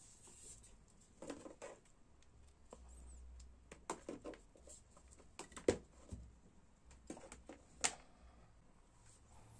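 Faint handling noises: scattered small clicks and rustles as wires, tape and alligator clips are handled while hooking a speaker up to a small amplifier board, with a sharper click about six seconds in and another near eight seconds.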